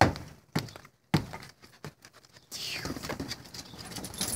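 Hammer striking a raised nail in a weathered wooden deck board: three sharp knocks about half a second apart, then a few lighter taps.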